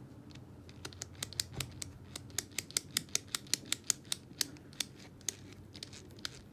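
Small hard parts of a removed RC truck transmission clicking and tapping as it is handled and taken apart: irregular sharp clicks, several a second, thickest through the middle. A faint low hum runs underneath.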